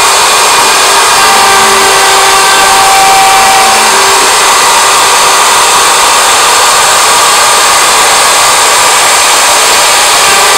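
Router spindle on a homemade CNC machine running at high speed while its bit cuts a pattern into a wooden board: a loud, steady whining hiss, with fainter tones that come and go as the cut changes.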